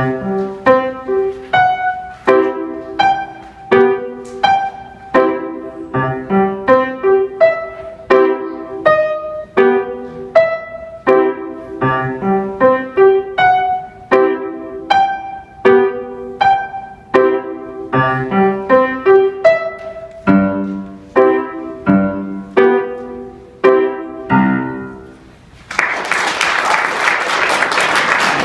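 A grand piano is played solo, a steady run of struck notes and chords. The playing stops about three seconds before the end, and audience applause breaks out.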